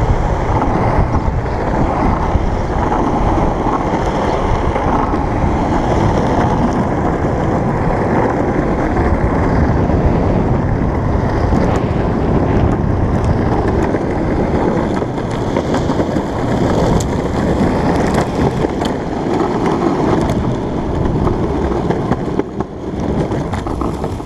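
Longboard wheels rolling over rough asphalt: a steady, loud rumble picked up through the deck, mixed with wind buffeting the microphone. The rumble fades near the end as the board slows to a stop.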